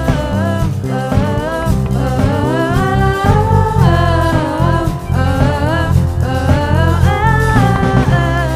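A live worship band performing a song: female singers carrying the melody into microphones over keyboards, drums and guitar.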